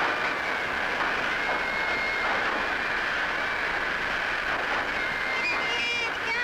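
Passenger train running, with a steady rattling rumble from the carriage. Near the end, shrill high-pitched calls, like children crying out, rise over the train noise.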